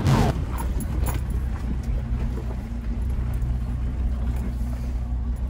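A vehicle engine running steadily at low revs, heard from inside the cab as it creeps along a dirt trail, with a few faint knocks about a second in.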